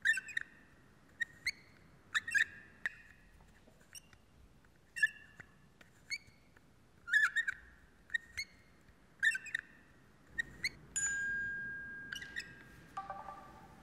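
Baby pram squeaking and clicking in a steady rhythm, about once a second, as it is rocked back and forth by its handle. Near the end it gives one longer, drawn-out squeak, then a few lower ones.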